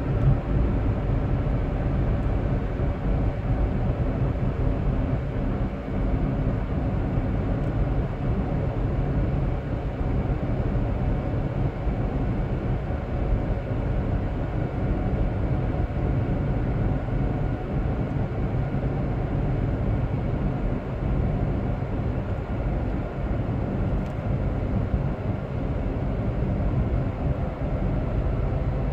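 A car driving steadily, its engine and tyre noise a low, even hum that holds without change.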